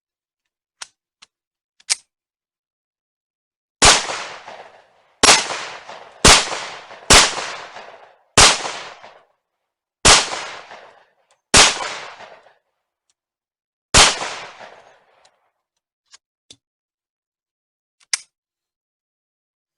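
Beretta M1951 9mm semi-automatic pistol fired eight times, shots spaced about one to two and a half seconds apart, each with a short echoing tail. A few faint clicks come before the first shot and after the last.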